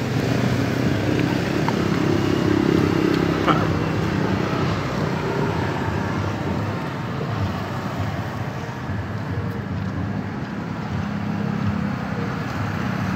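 Steady road traffic noise, a low rumble of passing cars, a little louder in the first few seconds and easing off after.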